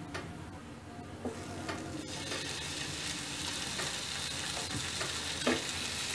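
Skewers of marinated chicken tikka sizzling as they are laid one by one in a hot oiled grill pan. The sizzle starts about two seconds in and grows louder as more skewers go down, with a few light knocks of skewers against the pan.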